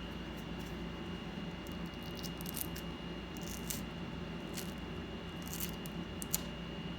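Faint, brief clicks and light scrapes, a few scattered through the middle, over a steady hum with a thin high whine.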